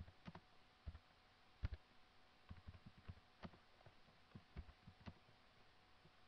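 Faint typing on a computer keyboard: about a dozen soft, unevenly spaced key taps as a few words are typed.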